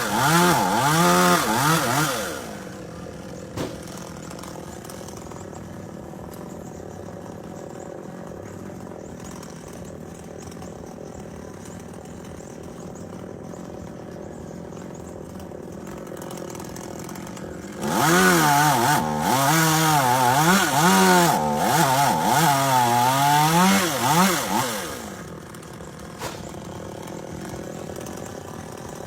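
Gasoline chainsaw running at full throttle with a wavering pitch, dropping to a steady idle after about two seconds. About halfway through it revs hard again for some seven seconds, its pitch dipping and recovering, then falls back to idle.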